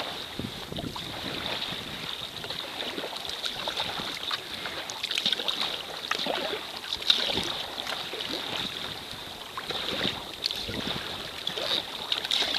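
Kayak being paddled through choppy sea water: irregular splashes of the paddle blades and water lapping against the hull.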